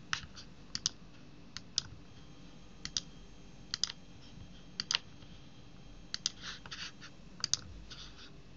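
Computer mouse clicks, mostly in close pairs, about once a second over quiet room tone, as options are picked in drop-down menus and tabs.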